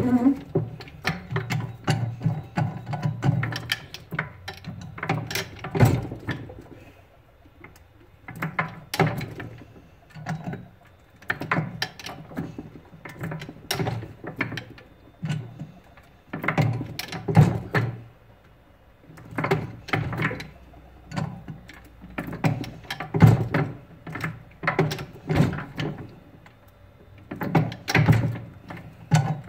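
Geared, hand-cranked rolling mill with grooved square-wire rolls being cranked. Its gears and frame clunk and click in repeated bunches as a platinum bar is rolled down toward square stock, with brief pauses between passes.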